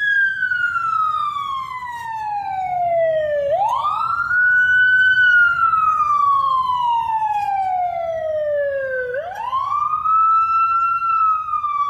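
Emergency-vehicle siren wailing, each cycle a quick rise followed by a long slow fall in pitch, run through a Doppler-shift effect set to pass by on the right, so each wail peaks a little lower than the one before.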